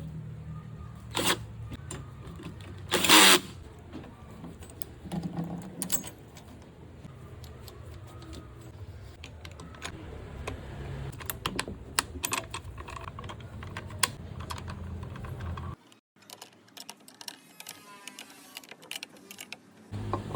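Irregular sharp metal clicks and knocks from hand work on bicycle parts, over a steady low hum. About three seconds in there is a louder rattle lasting about half a second.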